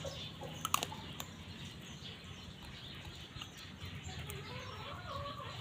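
Chickens clucking faintly, with a couple of sharp clicks about a second in.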